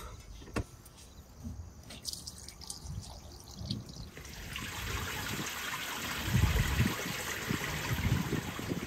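Grey water pouring from the campervan's waste-tank drain valve and splashing onto a concrete drain pad. The flow becomes a steady, louder splashing about four seconds in.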